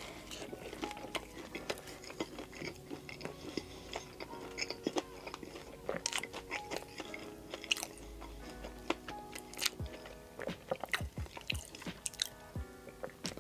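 Close-up eating sounds of a toasted turkey club sandwich: a bite, then chewing with many sharp crunches and crackles. Quiet background music runs underneath.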